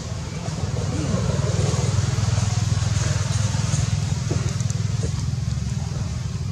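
Low, steady rumble of a passing motor vehicle, swelling about a second in and slowly fading.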